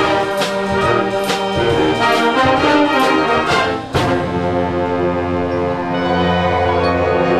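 Concert band playing a rock-and-roll arrangement with full brass chords. For the first half a percussion accent lands on each beat, about once a second. After a short drop in level about four seconds in, the band moves to held, sustained chords.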